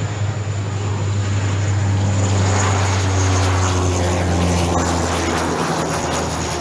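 Antonov An-26's two Ivchenko AI-24 turboprop engines and propellers making a deep, steady drone as the plane passes close on approach. The drone swells through the middle as the aircraft comes nearest, then eases off near the end.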